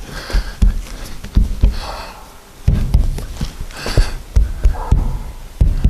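Rubber windscreen seal being worked over the body flange while the glass is pushed into place: irregular dull thumps, about half a dozen, with short rubbing squeaks of rubber and cord in between.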